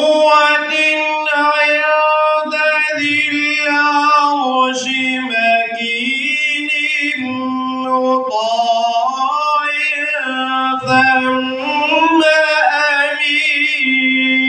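A man's melodic Quran recitation in the drawn-out tajwid style. He holds long, ornamented notes that wind up and down in pitch, with short breaks for breath between phrases.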